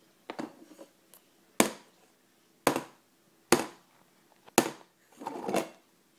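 A baby banging on a plastic high-chair tray: a series of sharp knocks, about one a second, ending in a short clatter.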